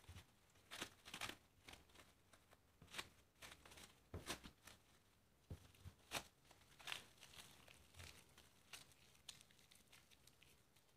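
Plastic cling film crinkling in short, irregular rustles as hands wrap it around a ball of fresh egg pasta dough. The rustles are quiet, and they come less often and more faintly near the end.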